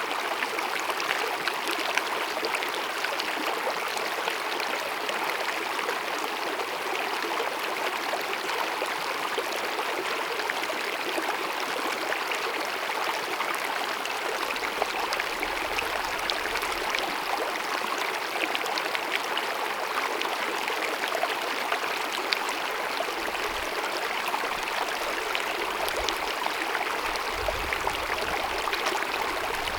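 Small glacier-fed mountain meadow stream cascading over rocks: a steady babbling rush of running water, full of fine splashes.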